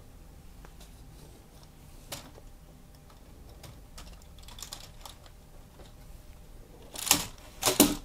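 Light plastic clicks and clatter of LEGO Technic parts as a model sports car is pressed onto the car transporter's ramp and pulled off again, working its rubber-band car lock. The clicks are scattered and soft, with two louder clatters about seven seconds in.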